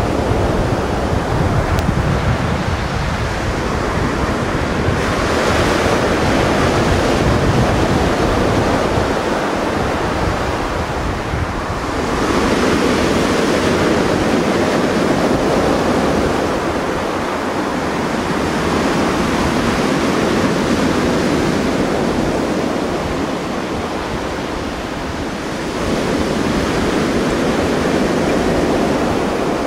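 Mediterranean surf washing onto the shore, the sound swelling as waves come in about 5, 12 and 26 seconds in, with wind rumbling on the microphone.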